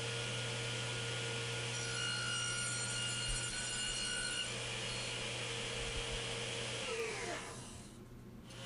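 Table saw running with its blade tilted to 45 degrees, cutting a miter in a mahogany board, the cut heard between about two and four and a half seconds in. Near the end the saw is switched off and winds down, its pitch falling away.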